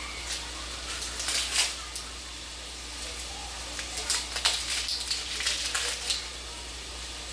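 Onions, shallot and garlic sizzling as they sauté in a pan, with a run of irregular crackles over a steady hiss that dies down about six seconds in.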